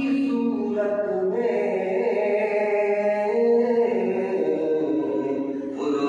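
Vocal chanting in long, drawn-out sung notes, the pitch moving to a new held note every second or two.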